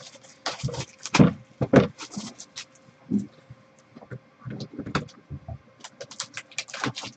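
Hands handling a cardboard trading-card hobby box and the sealed packs inside it on a tabletop: irregular taps, knocks and slides of cardboard and packs, with brief rustling.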